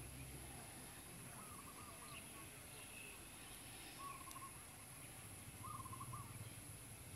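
Faint outdoor bird calls: three short quavering calls, about two seconds apart, over a low steady hum.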